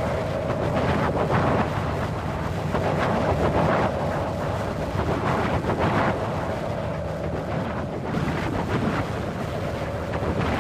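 Wind blowing in gusts, a continuous rushing that swells and eases every second or two, with a faint steady whistle in places.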